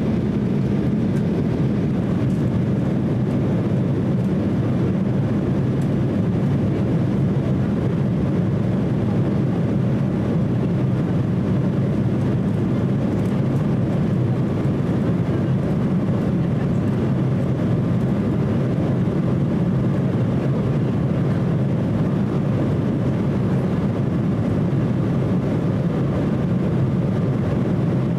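Steady cabin noise inside an Embraer E170 airliner in flight: the low, even drone of its two GE CF34 turbofan engines and the rush of air along the fuselage, unchanging throughout.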